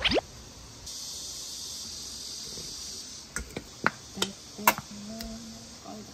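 Kitchen handling sounds: a quick falling squeak, then about two seconds of steady hiss, then a run of light clicks and knocks.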